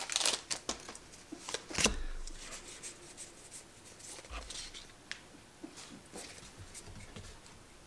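Pokémon trading cards being handled and flipped through one by one: soft scattered clicks and slides, with a sharper snap about two seconds in and a low thump near the middle.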